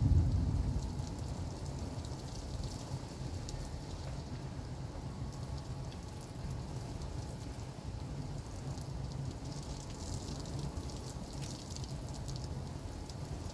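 Heavy thunderstorm rain falling steadily, with a patter of drops. A low rumble of thunder dies away over the first second.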